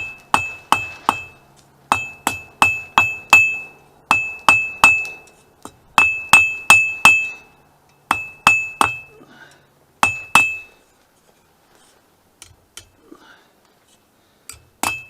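Hand hammer striking hot mild steel on an anvil while drawing out a point: quick groups of three to five ringing blows, with short pauses between groups. A longer pause comes near the end before the blows start again.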